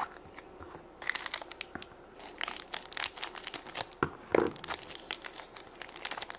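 A small plastic surprise egg clicks open, then a thin clear plastic bag crinkles and crackles as fingers handle and open it.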